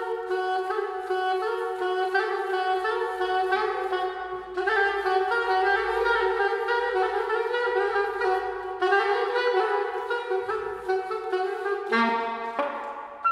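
Soprano saxophone playing a slow improvised line of long held notes, changing note every few seconds.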